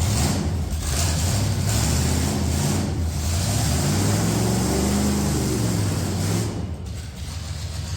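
V8 engine of a swapped Ford Ranger running at a raised idle, revved once about halfway through with a rise and fall in pitch, then dropping back to a lower idle near the end.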